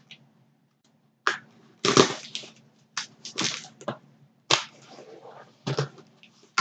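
Cardboard and plastic toy packaging being handled: a string of short crackles and knocks with pauses between them, as a boxed vinyl figure is pulled out and turned over.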